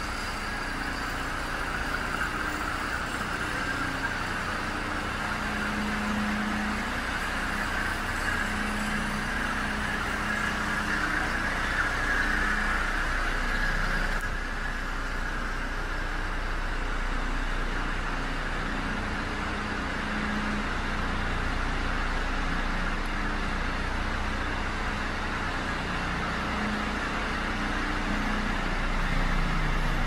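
DAF CF75.310 truck's 310 bhp Euro 5 diesel engine idling steadily: a continuous low hum with a fainter, steady whine above it.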